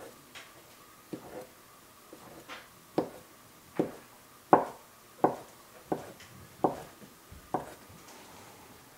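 Kitchen knife chopping through a sheet of fresh pasta dough onto a wooden butcher-block counter. A few soft taps come first, then from about three seconds in a row of sharp knocks, roughly one every 0.7 s.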